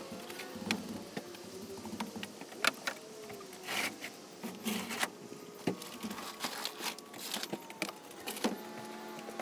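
A shovel and plastic trays being handled in a heap of potting soil on a plastic tarp: scattered scrapes, knocks and crinkles. A vehicle engine runs faintly in the background.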